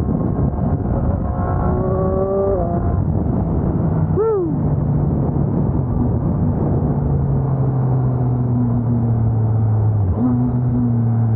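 Motorcycle engine and wind rush heard through a helmet microphone while riding. The engine climbs in pitch in the first couple of seconds, then settles to a steady, slowly falling lower note as the bike eases off. About four seconds in there is one short rising-and-falling tone.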